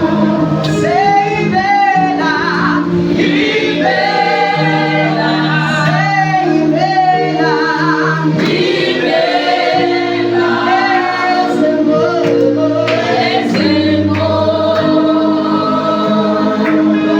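Praise team singing a gospel worship song together, with held backing notes underneath.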